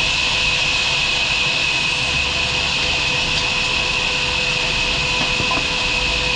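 Sawmill machinery running steadily: a constant whirring hiss with a steady hum under it, unchanging throughout.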